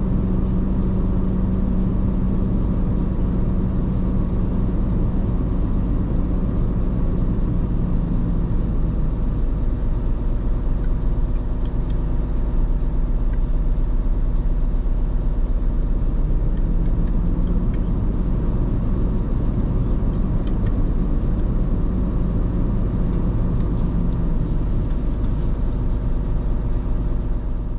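Heavy truck's diesel engine running steadily at a constant pitch, with a steady low road rumble.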